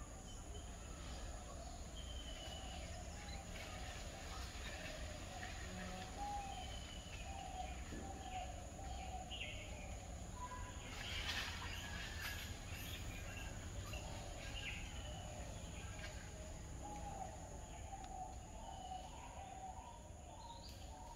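Faint tropical woodland ambience: several birds giving short, scattered calls throughout, over a steady high hum, with a brief louder noisy patch about eleven seconds in.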